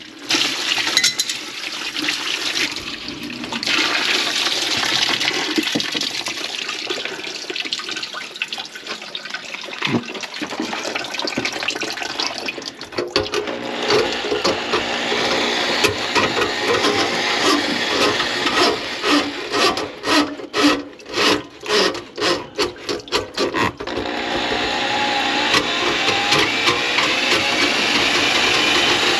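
Drum drain auger working in a clogged kitchen sink drain pipe: the snake cable spinning and scraping inside the pipe with a continuous whirring rasp. A little past the middle it goes in a quick run of short stop-start pulses, then runs steadily near the end.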